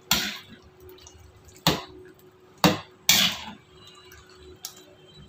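Metal spatula stirring thick creamy chicken gravy in a metal kadai, knocking and scraping against the pan about five times at uneven intervals, with wet squelching from the gravy.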